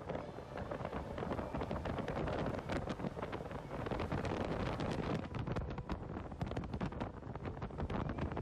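Wind buffeting a microphone on a moving motorcycle, with road and engine noise underneath.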